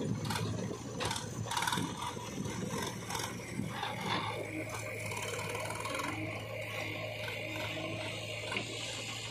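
Sonalika DI 740 diesel tractor running steadily as it pulls away with a loaded trailer, the trailer clattering and rattling for the first few seconds before the sound settles into a steadier engine drone.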